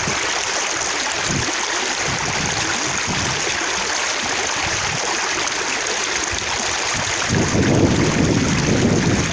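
Running water splashing steadily in a continuous hiss. About seven seconds in, a low rumble joins it.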